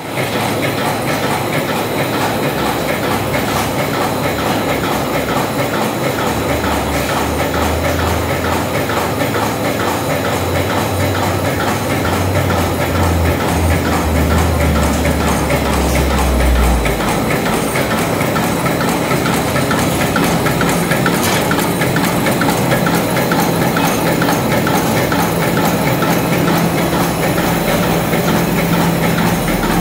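Automatic tissue napkin making machine running, its belt-driven rollers, embossing unit and band saw cutter making a loud, steady mechanical noise. A low hum underneath shifts higher about halfway through.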